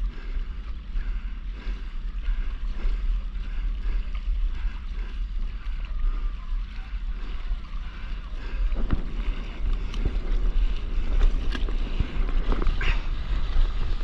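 Wind rumbling on the microphone over water sloshing against a stand-up paddleboard. In the second half it grows louder, with several sharp splashes and knocks as the board's nose pushes spray through the water.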